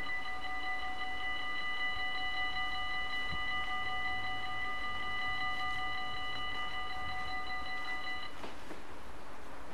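Dutch level crossing warning bell ringing rapidly with a bright metallic tone, then stopping about eight seconds in. A faint rattle of the approaching train follows near the end.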